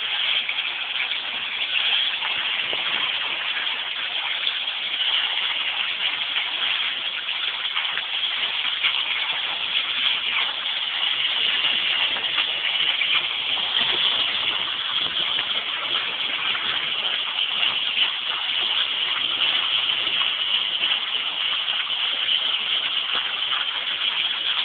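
A steady rushing noise that holds level without breaks or changes in pitch.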